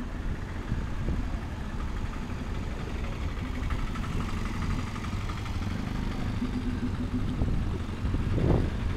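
Street traffic: a motor vehicle's engine running close by, a steady low rumble.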